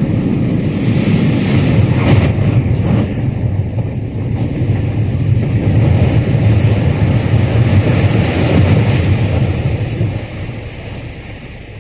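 Deep rumble of a concrete cooling tower collapsing after demolition blasting, with a sharp crack about two seconds in; the rumble fades over the last two seconds.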